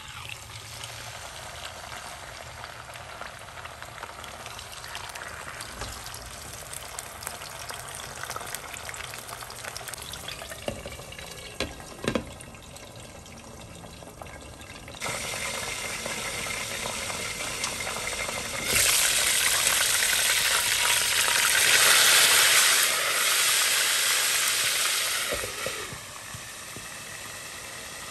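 Food frying in hot oil, a steady sizzle. It gets louder about halfway through, then much louder for several seconds, and dies back down near the end. A few light knocks come before the loud stretch.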